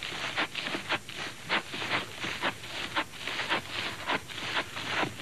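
An animal digging into a termite mound with its paws: rapid, irregular scraping strokes as dry earth is torn loose and flung out, several strokes a second.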